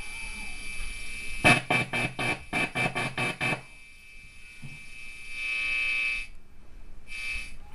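Hand-wired valve guitar amplifier's bright channel, with an instrument cable plugged into its input and the other end left floating, crackling and buzzing as the loose cable end is handled: a run of about eight quick crackles, then a steady buzz that cuts off suddenly and briefly returns near the end. It is the noise of an open, ungrounded input on a very bright channel, which is fine once grounded.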